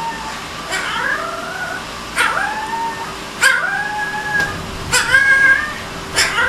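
A very young Alaskan Malamute puppy howling: about five short, high howls a little over a second apart, each starting sharply and rising in pitch before holding briefly.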